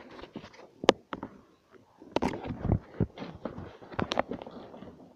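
Irregular knocks, taps and rustling from a phone being handled and moved around close to the microphone, with one sharp knock about a second in and a busier run of them in the middle.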